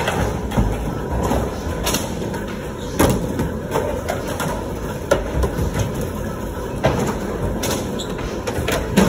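Skateboard wheels rolling with a steady low rumble, broken by sharp clacks of the board striking the ramp and floor about three seconds in, around five, just before seven and again near the end.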